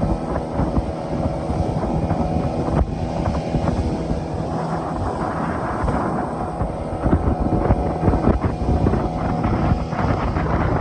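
Outboard motor of an open fishing skiff running at speed, a steady engine drone with wind buffeting the microphone and irregular knocks throughout.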